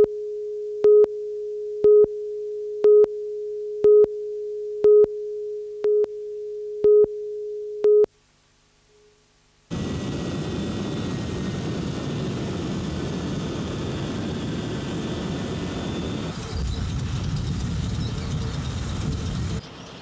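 Broadcast tape countdown leader: a steady line-up tone with a short, louder pip once a second, eight times, then a pause. After that comes about ten seconds of steady low machinery noise, which gets louder in the bass about two-thirds of the way through.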